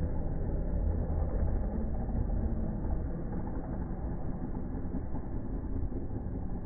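Several motocross bikes' engines racing around a dirt track, blending into one continuous engine noise with no single rev standing out.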